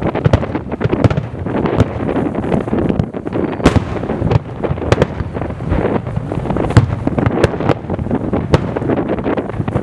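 Large aerial fireworks shells bursting in rapid succession, with many sharp cracks over a continuous rolling rumble of overlapping booms.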